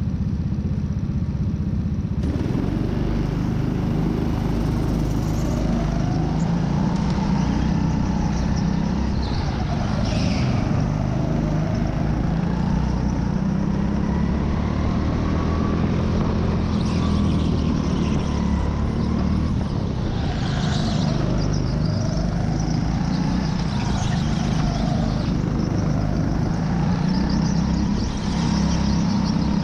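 Racing go-kart heard from on board while lapping at speed: a steady, loud motor drone whose pitch rises and falls again and again as the kart speeds up and slows for corners.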